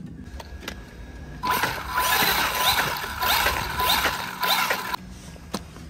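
Hosim HyperGo H16P RC car's electric motor and metal-geared drivetrain whirring under throttle in several rising pulses, with a steady whine. It starts about a second and a half in and stops about a second before the end.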